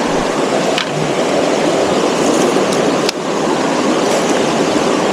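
Steady rush of stream water running over rocks, with two sharp clicks about one second in and about three seconds in.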